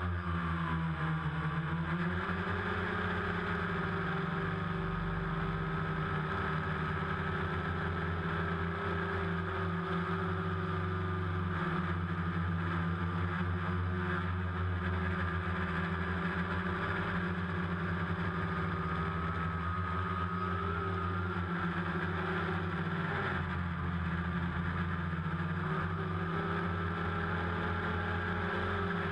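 DJI Phantom quadcopter's motors and propellers buzzing steadily in flight, picked up by the GoPro mounted on the drone. The pitch drops over the first couple of seconds and dips briefly a little after twenty seconds in.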